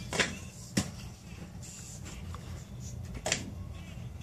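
A light soccer-patterned toy ball hitting, with three dull knocks: two close together in the first second and a third about three seconds in.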